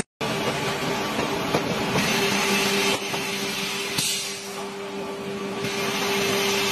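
Plastic blow moulding machine running: a steady mechanical hum with a constant low drone, the noise shifting a few times.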